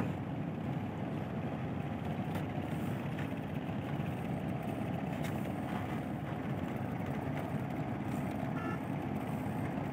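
A steady, even mechanical drone, like an engine running at a constant speed.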